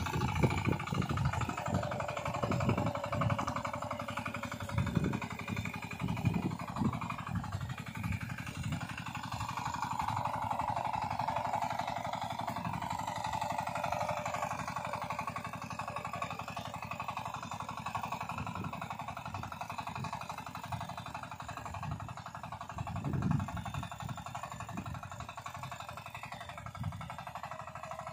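Small single-cylinder engine of a walk-behind power weeder running steadily under load as its tines work the soil between crop rows.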